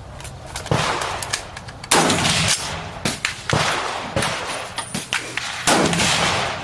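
Rifle shots fired at a target, apparently from a Black Rain Ordnance AR-style rifle: about four loud cracks one to two seconds apart, each dying away quickly, with fainter cracks in between.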